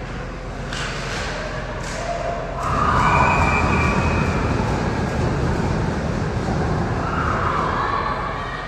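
Ice hockey game rink sound: a few sharp knocks in the first three seconds, then a louder, steady rumbling noise from about three seconds in that eases off near the end.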